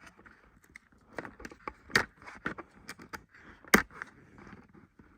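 Plastic packaging and a cutting tool being handled: rustling and small clicks, with two sharp snaps about two and four seconds in, as the last rubber tie holding the action figure is cut and the figure is worked free of its insert.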